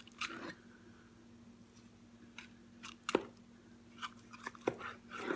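Cutting through a raw chicken's breastbone and cartilage: a scatter of short crunches and clicks, a few each second in the latter half.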